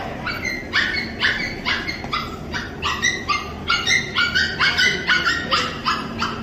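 A small puppy yipping over and over, short high calls about two or three a second.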